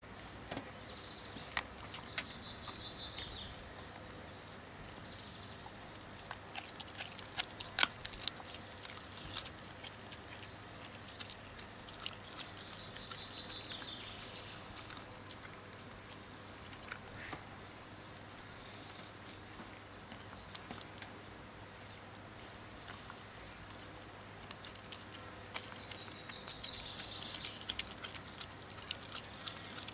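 Young Australian kelpie chewing and gnawing a raw lamb sparerib: irregular crunches and clicks of teeth on meat and bone, with a few sharper clicks, the loudest about eight seconds in.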